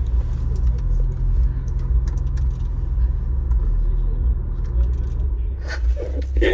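Car engine running with a steady low rumble; its low hum drops away about five seconds in.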